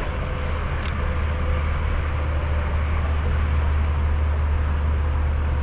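Steady low rumble under an even hiss of outdoor background noise, with one light click about a second in.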